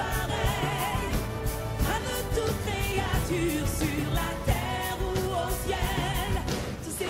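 Film soundtrack music: choral voices singing a sustained, wavering melody over full orchestral backing with a steady percussion beat.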